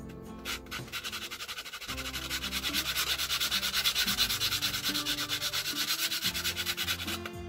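Sandpaper rubbed quickly back and forth by hand along the edge of an MDF knife handle scale, taking off the burr. Quick, even scratchy strokes, several a second, pick up about a second in, are loudest in the middle and ease off near the end.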